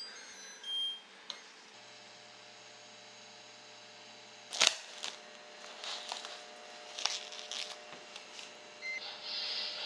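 Samsung induction cooktop's touch panel beeping several short tones as it is switched on, followed by a faint steady hum. A sharp clack about halfway through is the loudest sound, with a few lighter knocks after it, and hot oil starts to sizzle in the pan near the end.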